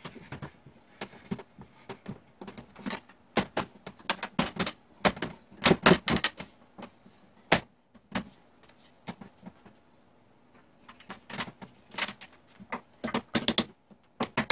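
Wooden rocking-chair parts knocking and clicking together as they are fitted by hand, tenons going into mortises. Irregular taps and knocks come in busy runs in the middle and again near the end, with a quieter pause between.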